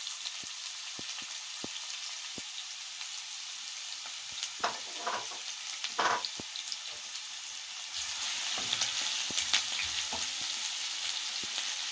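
Onions frying in hot cooking oil in a saucepan: a steady sizzle with scattered crackles, and two short scraping sounds near the middle. The sizzling grows louder and busier about eight seconds in.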